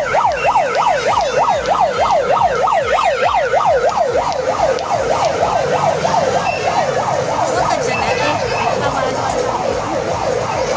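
Electronic siren in a fast yelp, its pitch sweeping up and down about three to four times a second, growing fainter toward the end.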